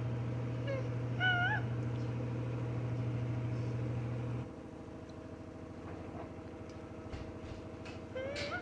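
Washing machine motor humming steadily during the spin, then cutting off suddenly about halfway through. Two short wavering high calls, rising and falling in pitch, come a second in and again near the end.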